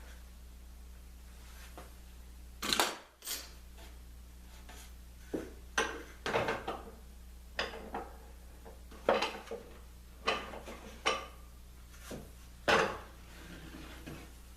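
Metal woodworking clamps clanking and knocking as they are loosened, taken off and set down: a dozen or so irregular sharp clanks, the loudest about three seconds in and near the end.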